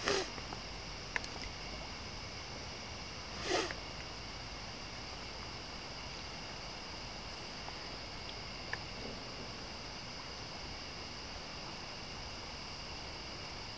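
Steady, high chorus of evening insects. Two brief splashes from fish rising to take hatching white flies on the surface come right at the start and again about three and a half seconds in.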